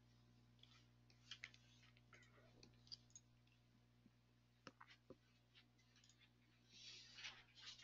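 Near silence: a low steady electrical hum with a few faint, scattered clicks from a computer's mouse and keys being worked, and a brief soft rustle near the end.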